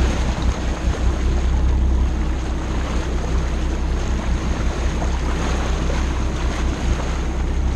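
Wind buffeting the microphone as a boat moves across open water, over a steady rush and splash of water along the hull and wake.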